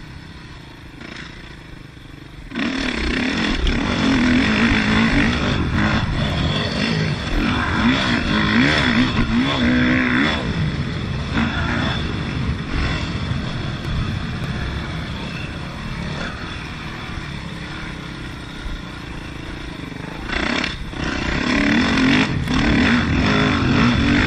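2005 Yamaha YZ450F's single-cylinder four-stroke engine being ridden hard, the engine note rising and falling as the throttle is worked. It runs quieter for the first couple of seconds, then the throttle opens sharply about two and a half seconds in; near the end it drops off briefly and comes back on hard.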